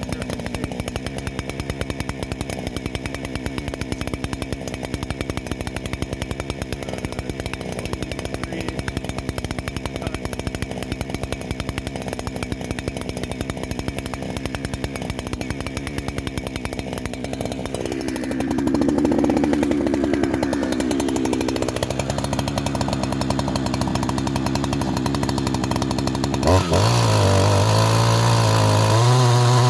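Two-stroke chainsaw with a 36-inch bar and a freshly sharpened milling chain. It idles steadily, picks up for a few seconds about two-thirds of the way in, then is throttled up sharply near the end and holds at high revs.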